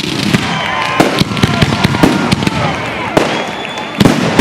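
Fireworks finale barrage: rapid, overlapping bangs and crackling, with whistling shells gliding up and down in pitch and a cluster of loud bangs about four seconds in.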